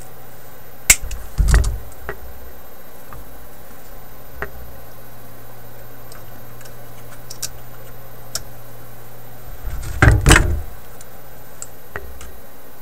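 Handling noises from work on a metal tube-radio chassis: a sharp click about a second in, a knock just after, faint ticks, and a cluster of louder knocks near the end, over a steady low hum that stops near the end.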